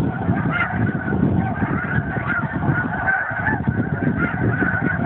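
A continuous chorus of many snow geese calling at once, overlapping high honks with no pause, over a low rumbling noise.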